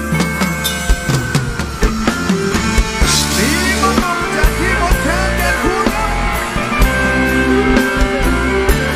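Live band playing an upbeat Thai lam-style song with a drum kit and guitar, a man singing over it into a microphone.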